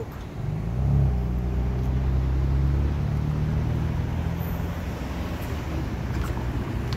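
City street traffic, with a motor vehicle's engine running close by: a low, steady rumble that builds about a second in.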